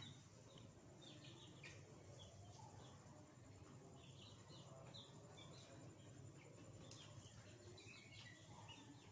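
Faint, scattered peeping of chicks, short high chirps every so often over a quiet background.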